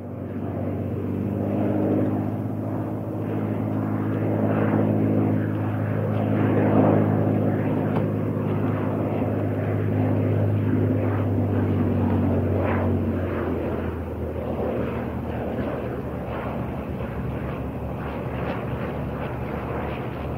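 Single-engine piston propeller airplane, a Cirrus SR-series, on final approach to land, with a steady engine-and-propeller drone that eases off slightly in the last third.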